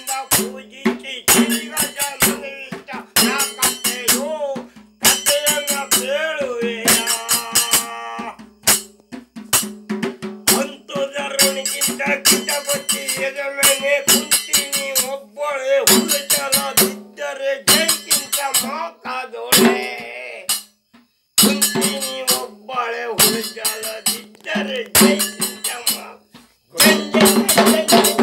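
Gumte clay-pot drums struck in a fast, driving rhythm under group folk singing, with a brief break about two thirds through.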